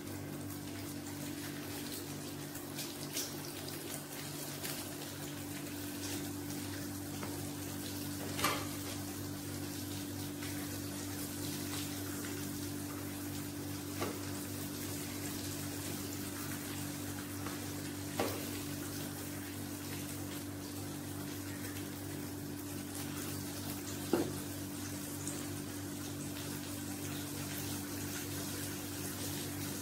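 Steady machine hum with several fixed tones under a constant hiss, broken four or five times by short soft knocks.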